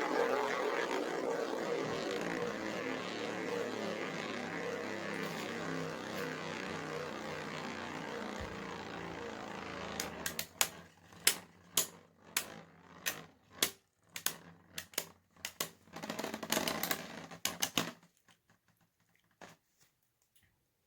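3D-printed Beyblade spinning tops whirring steadily in the stadium, the whir slowly fading. About halfway through it breaks into a run of sharp clacks and rattles as the tops lose spin, and stops near the end.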